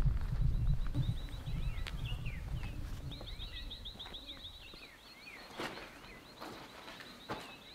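Flies buzzing close to the microphone with a low rumble, fading out over the first second or two. Then birds call in rapid runs of short, high chirps over a thin, steady high note.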